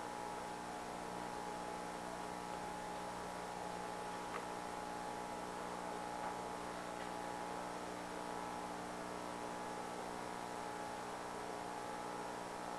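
Steady electrical hum with a constant hiss, the background noise of the recording, with two faint ticks about four and six seconds in.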